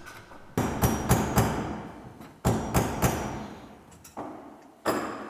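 A series of hammer blows: two quick runs of three strikes, then a lighter one and a sharp one near the end, each ringing out briefly.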